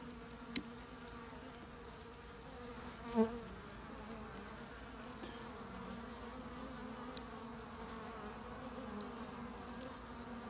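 Honeybees buzzing steadily around an open hive, a constant hum, with a brief louder buzz about three seconds in. Two short sharp clicks, about half a second in and around seven seconds.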